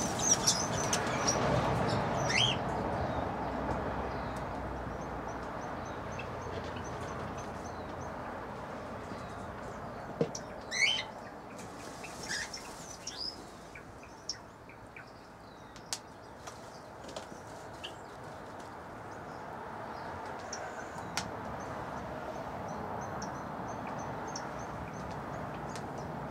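Small birds chirping now and then, short high calls scattered through, over a steady rushing background that is loudest in the first few seconds.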